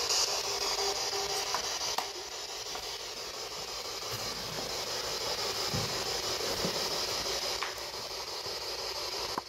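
Spirit box radio scanner hissing steady static, with a faint steady tone underneath and a few faint clicks. The static drops a little in level about two seconds in.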